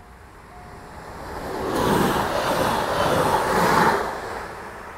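Stadler FLIRT electric multiple unit passing close by at speed: a rushing of wheels and air that swells about a second in, is loudest for about two seconds, then falls away near the end. A level-crossing warning tone beeps on and off at the start.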